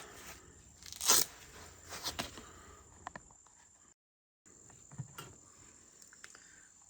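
Handling noises from ceramic figurines being looked over: a loud rustle about a second in, then a few light clicks and knocks, with a brief gap of dead silence in the middle.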